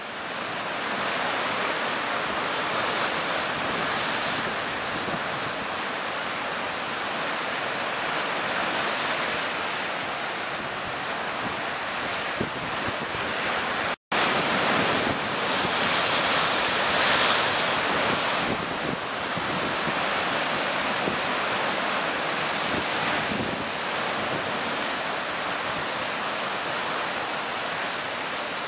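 Surf washing over a rocky shoreline, a continuous rushing of breaking waves with wind buffeting the microphone. The sound drops out for an instant about halfway through, then comes back a little louder and gustier.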